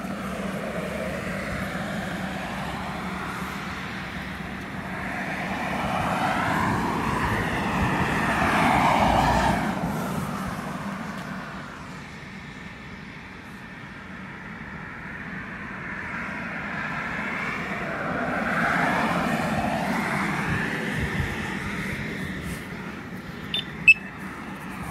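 Road traffic: cars pass by one after another, the tyre and engine noise swelling up and fading away twice, loudest about nine and nineteen seconds in. A single short sharp click comes near the end.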